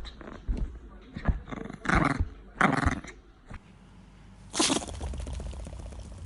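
Small Pomeranian dog sneezing three times in short, sharp bursts: two in quick succession about two seconds in, and a third a little before five seconds in.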